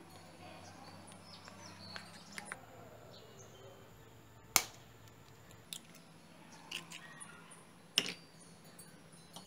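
Light clinks of a metal fork against a glass mixing bowl, then a loud sharp crack as an egg is rapped on the bowl, followed by a few more knocks and clicks.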